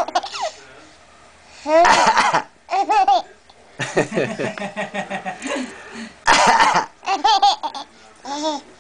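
An adult makes fake coughing noises a few times, and an infant answers each with short, high-pitched giggles.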